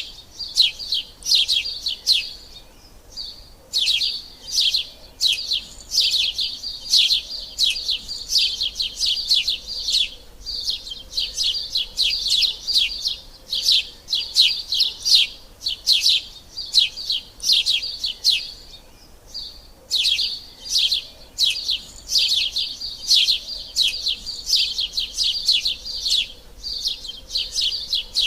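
Sparrows chirping: a rapid, continuous run of short, high chirps, pausing briefly about three seconds in and again near nineteen seconds.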